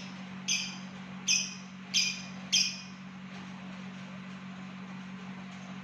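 Lovebird giving four short, sharp high-pitched calls, about two a second in the first three seconds: the clipped 'ngetik' calling, over a steady low hum.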